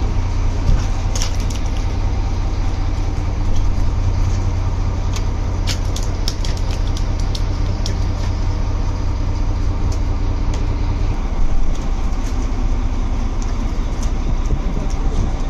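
Fishing trawler's engine running steadily with a deep drone, with scattered short clicks and knocks over it.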